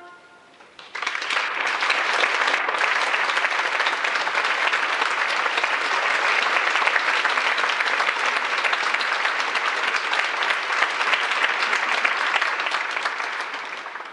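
Audience applause, starting about a second in, holding steady, and dying away near the end.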